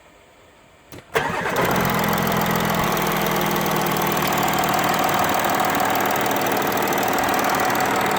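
Vehicle engine cranked and starting about a second in, catching at once without throttle, then idling steadily.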